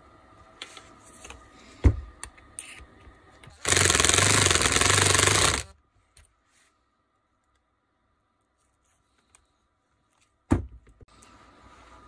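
Cordless impact driver hammering for about two seconds on the chuck of a Bosch angle drill, trying to break it loose; the chuck stays dead stuck. A sharp knock comes before the burst and another near the end.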